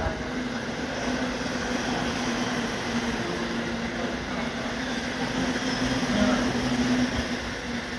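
E531 series electric commuter train passing through a station without stopping: a steady rush of running noise with a low hum underneath.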